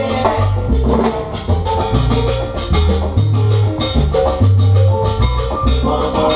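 Salsa band playing live, with bass, Latin percussion and horns carrying the tune and no singing.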